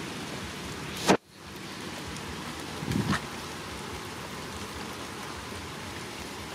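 Steady patter of rain on wet ground. A sharp click comes about a second in, and a smaller low thump comes near three seconds.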